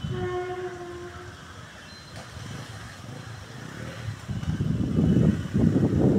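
A horn sounds one steady note for about a second at the start. From about four seconds in, a low, uneven vehicle rumble grows much louder and becomes the loudest sound.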